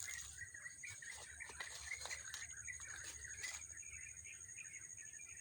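Small birds chirping, with a steady high-pitched tone running underneath and a few sharp clicks in the first few seconds.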